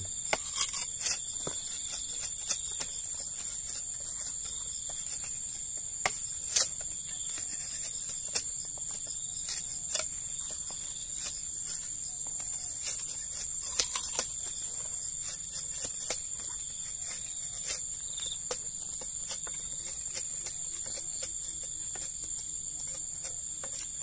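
Steady high-pitched trilling of insects, with irregular sharp cracks and scrapes of sickle blades cutting and peeling sugarcane stalks.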